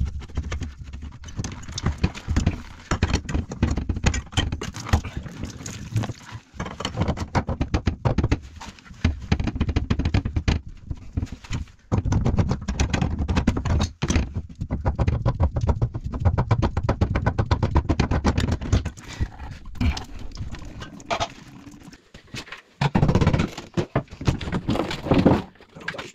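Rapid, irregular clicking, tapping and knocking of hand tools on the metal pipework and fittings under a wash basin, with close rubbing and handling noise. It eases off briefly about twenty seconds in, then picks up again louder.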